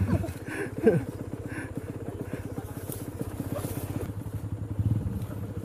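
Motorcycle engine running steadily with a rapid, even putter, and a brief call from a voice about a second in.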